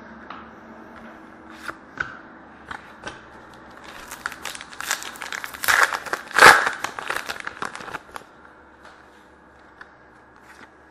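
A foil trading-card pack being torn open and crinkled: a dense stretch of crackling starting about four seconds in and lasting some four seconds, with a few light clicks of card handling before and after.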